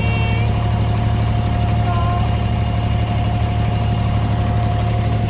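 Engine of a wooden passenger boat running steadily: a constant low hum with a thin, even tone above it.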